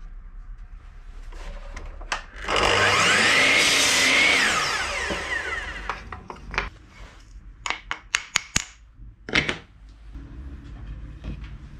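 A handheld power tool runs for about two and a half seconds, its pitch rising and then falling away, as it cuts or drills into wood. Then come a series of sharp knocks and clicks.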